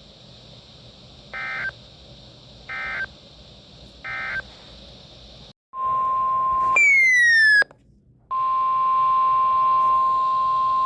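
NOAA Weather Radio EAS tones: three short bursts of SAME digital data, the end-of-message code closing the previous warning. After a brief dropout comes the steady 1050 Hz warning alarm tone, broken about seven seconds in by a short falling sweep and a gap before the tone resumes.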